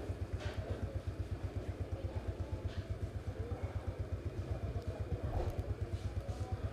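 An engine idling with a fast, even low throb.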